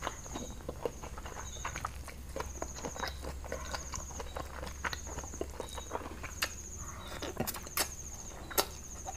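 Close-miked eating: wet chewing, lip smacks and mouth clicks as rice noodles and papaya salad with squid are eaten by hand. A faint high chirp repeats about once a second behind it.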